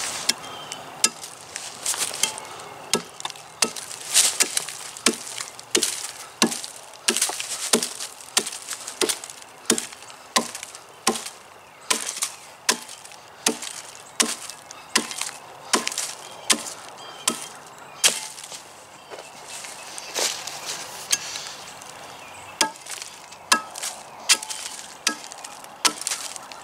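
Light single-bevel hewing axe chopping into the side of a log, a steady run of sharp blows a little more than one a second, as wood is hewn away from the log's face.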